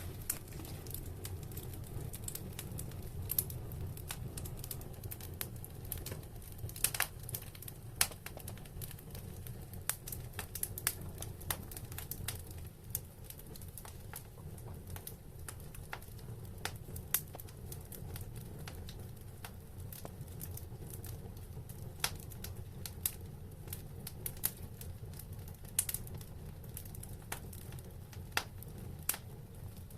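Wood fire burning in a fireplace: irregular sharp crackles and pops, a few louder than the rest, over a steady low rumble.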